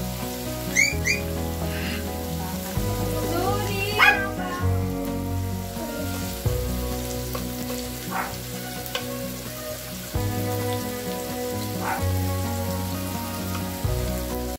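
Thin slices of pork belly sizzling on a hot electric grill pan, with background music of sustained chords underneath. A puppy gives short, high yelps about a second in and again around four seconds.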